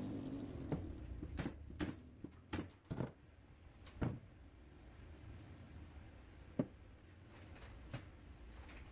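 Irregular sharp knocks and taps of solid-wood boards being handled, fitted and struck together during assembly, several in the first four seconds and a single louder knock about six and a half seconds in, over a steady low hum.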